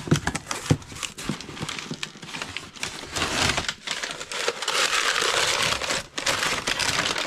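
Crumpled brown kraft packing paper crinkling and crackling as a wrapped item is lifted out of a cardboard box and unwrapped by hand. The crackles come scattered at first, then run on as steady, louder crinkling from about three seconds in.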